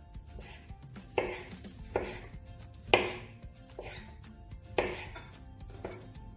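Kitchen knife chopping tomato on a wooden cutting board: separate knocks of the blade on the board, roughly one a second, with quieter cuts between.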